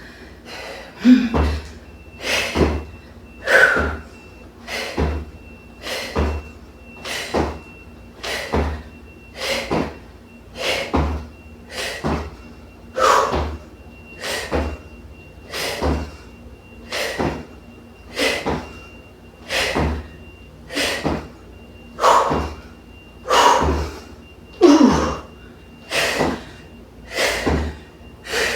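Feet landing on the floor in a steady run of jump squats, a dull thud about every second, some landings with a forceful exhale.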